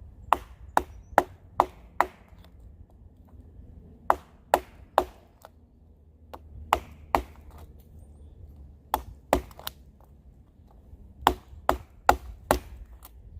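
Pocket knife being driven into dead wood with sharp chopping knocks, coming in quick bursts of two to five strikes, about two or three a second, with short pauses between bursts.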